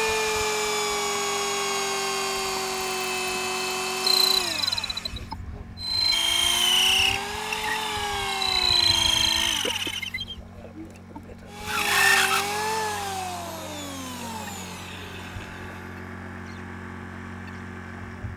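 A motor's whine with many overtones, gliding down and up in pitch, cutting out twice and then falling away, over a steady low hum.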